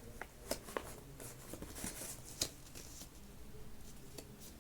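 A square sheet of paper being folded and creased by hand, with soft rustling and a scatter of short crisp clicks, the sharpest about two and a half seconds in.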